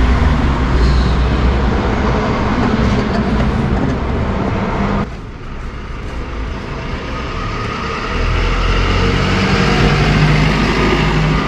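A motor vehicle's engine running steadily with a deep hum; it drops back about five seconds in and comes up louder again a few seconds later.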